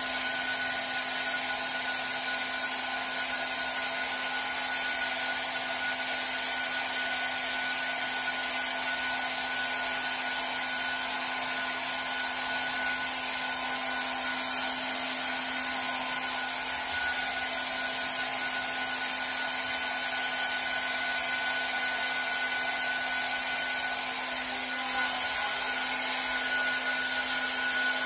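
Handheld hair dryer running steadily, a rush of air with a low hum and a higher whine from its motor.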